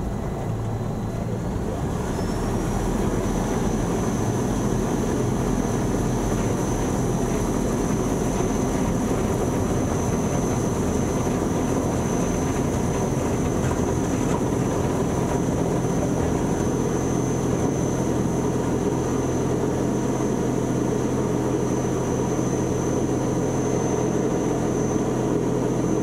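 Electric motor and propeller of a Phoenix motorglider running under power, with rushing propeller and air noise. A high steady whine comes in with a short upward glide about two seconds in and then holds.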